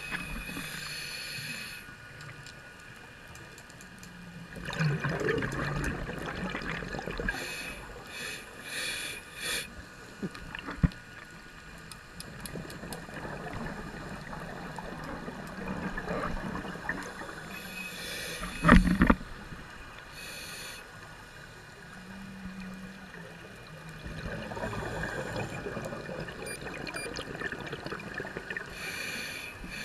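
A scuba diver breathing through a regulator, heard underwater: hissing inhales alternate with gurgling bursts of exhaled bubbles, a few breaths in all. Partway through there is a loud thump.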